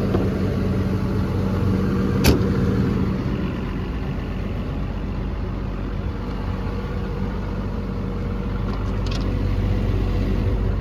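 Cummins diesel of an XCMG XE210CU excavator running at a steady idle, with one sharp click about two seconds in.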